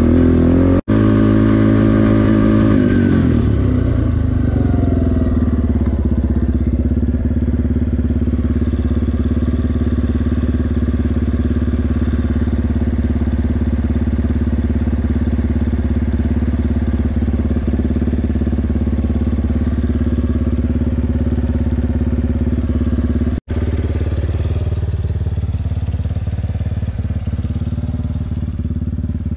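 Yamaha 350 sport quad's engine winding down from riding speed over the first few seconds, then idling steadily. The sound cuts out for an instant twice, once near the start and once near the end.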